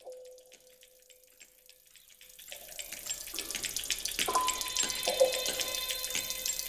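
Soundscape composition built from field recordings, played back. It starts faint, with a single steady tone and light clicks. From about two and a half seconds in, rushing, water-like noise with dense clicking and several ringing tones swells up.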